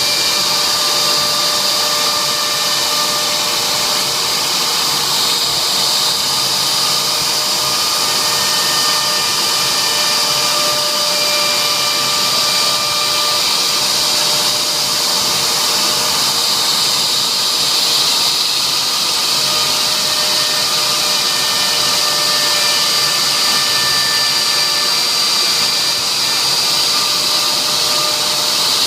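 CNC router spindle running steadily as it engraves a signature board, a continuous high whine over a hiss of cutting.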